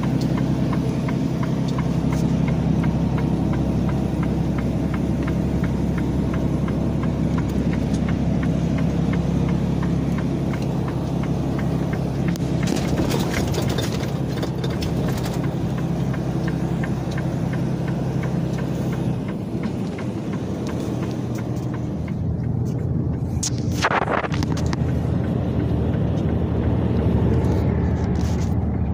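Semi-truck engine and road noise heard inside the moving cab: a steady low drone whose note shifts about two-thirds of the way in. A brief rushing noise cuts in near the end.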